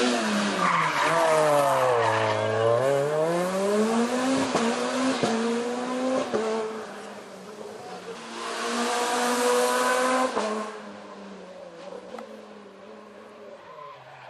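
Peugeot 207 S2000 rally car's naturally aspirated four-cylinder engine braking and downshifting into a hairpin, its pitch falling, then accelerating hard out of the corner with rising revs and quick upshifts, fading up the road. Later it comes back louder at full throttle further up the stage before dying away.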